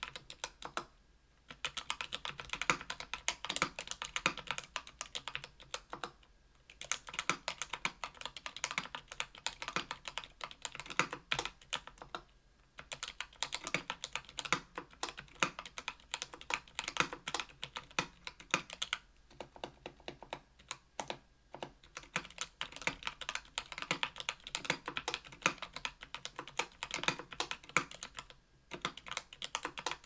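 Typing on a KBDfans Tofu 65% aluminum mechanical keyboard with lubed Everglide Oreo tactile switches, an aluminum plate and GMK keycaps: fast runs of key clacks broken by brief pauses every few seconds.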